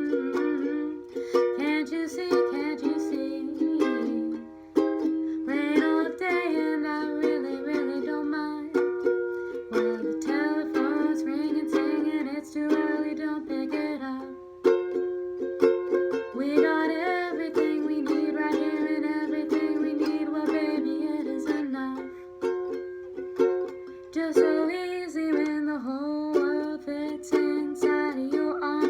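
Ukulele being strummed and picked, playing a gentle tune.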